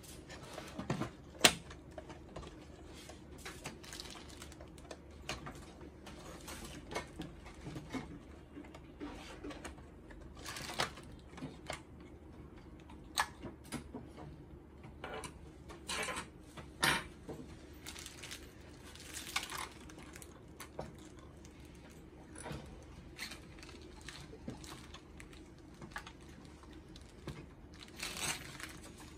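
Irregular clicks, taps and plastic snaps from a Zebra ZC100/300 card printer's feeder assembly being prised apart with a small flat screwdriver, gears and locking tabs coming loose, with crinkling of the plastic sheet beneath. The sharpest click comes about a second and a half in.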